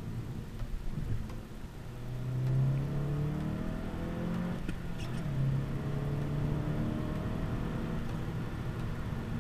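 SEAT Leon Cupra 300's 2.0-litre turbocharged four-cylinder engine heard from inside the cabin, accelerating over a steady low road rumble. The engine note rises, drops back at an upshift about halfway through, then rises again in the next gear.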